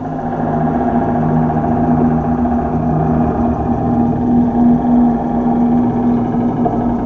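A steady, loud low electronic drone with a few held tones, from the performance's live sound score.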